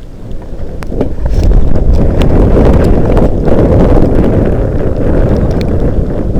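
Strong wind buffeting the microphone: a loud, low rumbling rush that swells about a second in and holds, with scattered sharp clicks.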